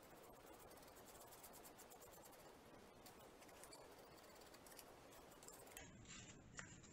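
Near silence with faint, fast scratching of a stiff, nearly dry paintbrush being worked over a model brick wall, and a few faint clicks near the end.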